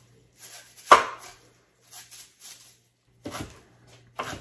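Large kitchen knife chopping fresh cilantro on a cutting board: irregular knocks of the blade striking the board, the loudest about a second in.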